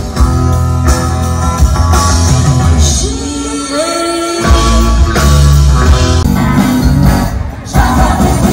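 Loud rock music with a singing voice and guitar over a heavy bass beat; the bass drops out for about a second and a half in the middle, then comes back in.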